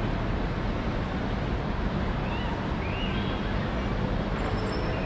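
Steady hum of distant city traffic, a low even rumble of engines and road noise, with two faint short high sounds about two and three seconds in.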